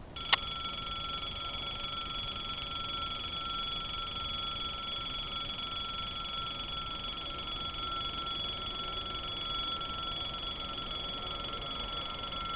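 Railway level-crossing warning bell starting abruptly with a click and then ringing steadily at an even level, a high, fast-repeating ring. It warns that a train is approaching and the barriers are about to come down.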